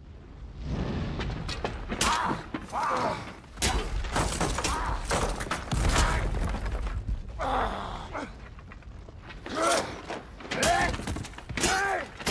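Heavy thuds and crashing of falling stone and rubble, with a deep rumble, amid repeated impacts. Grunting and groaning from a man's voice comes in near the end.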